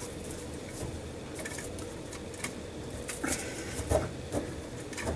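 Cutting pliers squeezing on a garburator's copper power cable, with a few sharp metallic clicks and creaks, the strongest in the second half, as the jaws fail to cut through.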